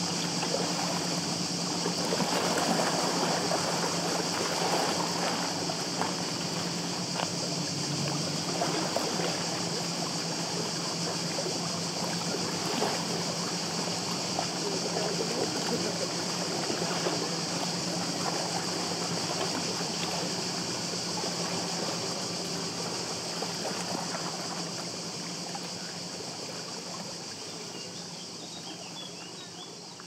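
Small lake waves lapping and splashing, with a steady high hiss underneath; the sound fades down over the last several seconds.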